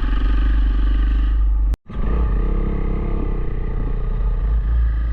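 Dual-sport motorcycle engine running as the bike rides, with heavy wind rumble on the microphone. The sound cuts out for a moment a little under two seconds in, then the engine picks up again with a brief rise in pitch.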